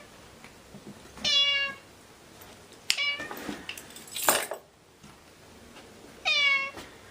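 A domestic cat meowing twice, once about a second in and again near the end; each call drops in pitch at its start, then holds. A sharp click and a louder rough burst of noise come in between.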